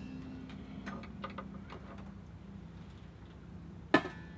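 Stainless steel cooking pot being set into a Thermos Shuttle Chef's insulated outer container: a few faint light clinks, then one sharp metal clank near the end, over a faint steady hum.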